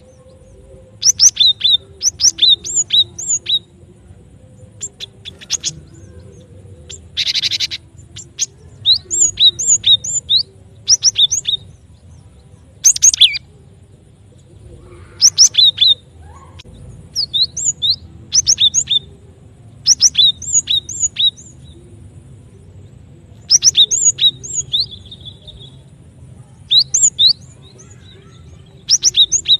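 Cinereous tit (gelatik batu) calling in repeated bursts of sharp, high chips, with a few harsh buzzy calls between them. It is a recording played as a lure to draw the birds in.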